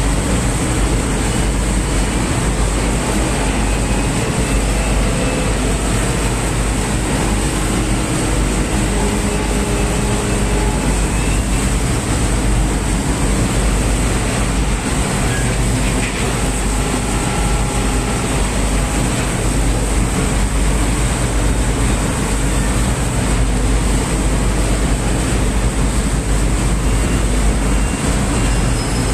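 Factory production-line machinery in a pellet-fertilizer plant running steadily. It makes a loud, constant din with a deep hum underneath and a high hiss on top.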